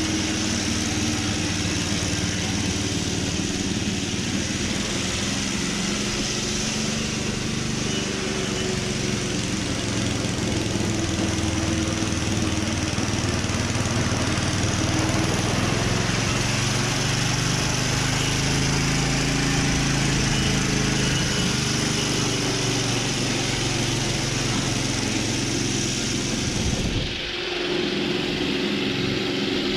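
Ransomes Marquis petrol cylinder mower running steadily under way, its engine note shifting a little in pitch. Near the end the sound changes abruptly, losing its high hiss after a brief dip.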